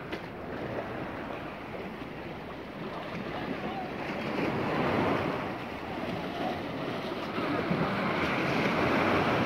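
Small sea waves washing in over shallow water against a rock breakwater, with wind buffeting the microphone. The wash swells twice, about halfway through and again near the end.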